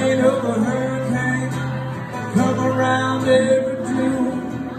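Live acoustic guitar with a second guitar playing an instrumental passage of a country-rock song, held notes and some bent notes over the strumming.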